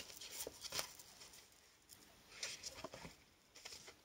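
Faint rustling and soft clicks of a deck of oracle cards being shuffled and handled by hand, in short scattered bursts.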